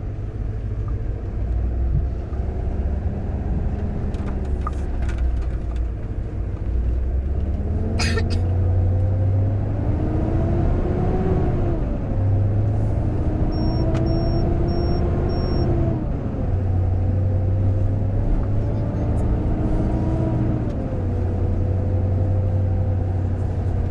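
Motor vehicle engine running under a heavy low rumble, its pitch rising and falling several times with changing revs. Four short, high beeps come about halfway through.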